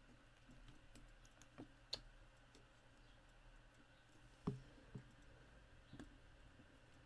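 Near silence broken by about five faint, sharp clicks and taps, the loudest about four and a half seconds in: tweezers handling small adhesive embellishments and pressing them onto a card.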